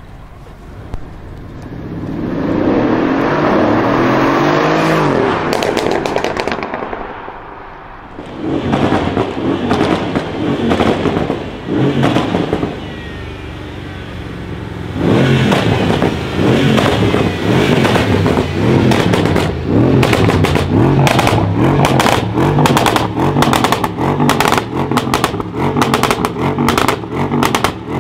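Mercedes CLS63 AMG's twin-turbo V8, tuned with a pops-and-crackles remap, revving up and falling away. It then revs again and again, with rapid exhaust crackles and pops between and over the revs for most of the rest of the time.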